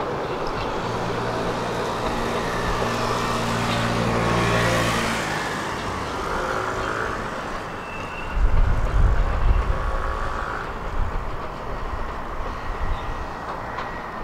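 Electric commuter train running on the track, with a steady low motor hum and wheel and rail noise, loudest about four to five seconds in. From about eight seconds a heavier, uneven low rumble takes over.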